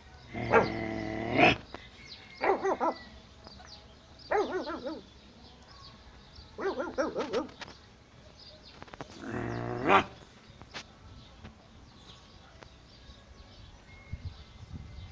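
A puppy giving five drawn-out, growly barks, spaced a second or two apart; the barking stops about ten seconds in.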